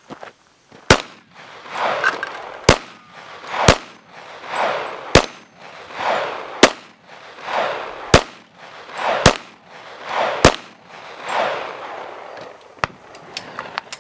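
Handgun fired in slow, steady succession: eight sharp shots about one to one and a half seconds apart, each followed by a fainter trailing sound, then two lighter cracks near the end.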